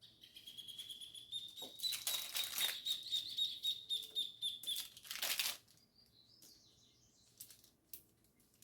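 A bird's high, thin trill of quick repeated notes, rising slightly in pitch, lasting about five seconds. Loud rustling or flapping strokes come with it and stop about five and a half seconds in.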